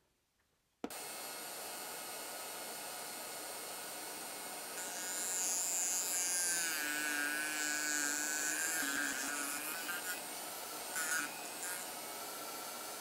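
Dremel rotary tool with a grinding disc running steadily at high speed. From about five to ten seconds in, a screw tip pressed against the disc adds a louder, wavering high-pitched grinding as the disc notches one corner of the tip into a self-tapping flute. Two brief scrapes follow near the end.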